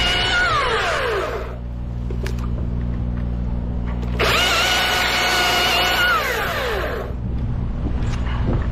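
Chainsaw at full throttle twice: a high engine whine that falls away in the first second and a half, then a steady high whine about four seconds in that lasts about three seconds before its pitch drops as the throttle is released. A steady low engine drone runs underneath.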